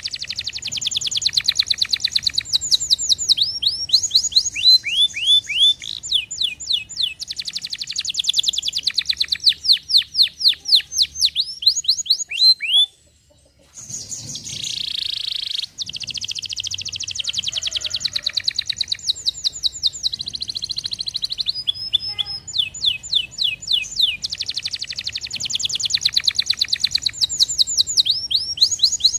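Domestic canary singing: rapid trills of repeated high, downward-sweeping notes in phrases that change from one note type to the next, with a one-second break about halfway through.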